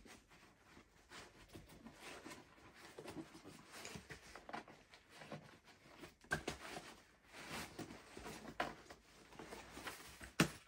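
Faint rustling and scraping of nylon MOLLE straps and pouch fabric being threaded and pulled through the carrier's webbing, with scattered small clicks and one sharper knock near the end.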